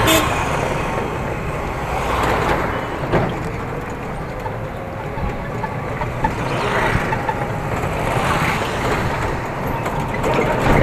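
Steady street traffic noise heard while moving along a road: engines and road rumble.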